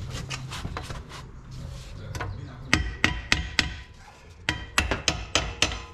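A hammer striking a rear brake drum to free it from the hub: about ten sharp, ringing metal blows in two quick runs, the second starting a little past halfway.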